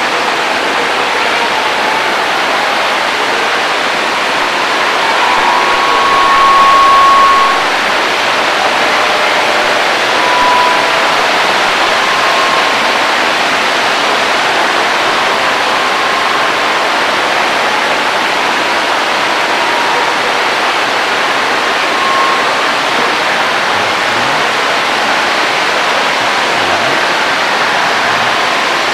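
A steady, loud hiss of noise with no distinct events, swelling slightly a few seconds in, with a few faint brief tones in the middle.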